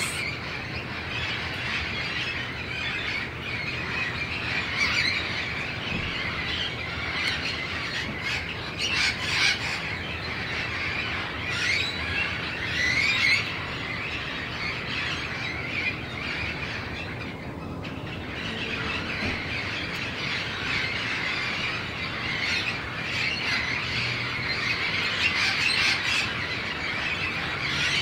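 A large flock of wild parrots calling all at once: a dense chorus of overlapping high calls with no gaps, easing briefly about two-thirds of the way through.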